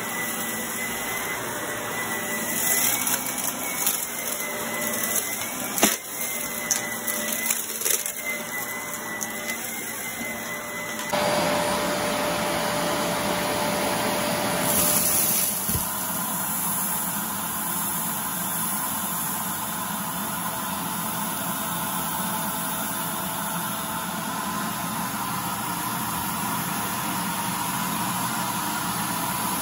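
Bagless upright vacuum cleaner running on carpet with a steady whine, small bits rattling and clicking as they are sucked up. About eleven seconds in the sound changes abruptly to a louder, fuller rush as the suction is switched to the hose, which is drawing at a tray of feathers, glitter and sequins.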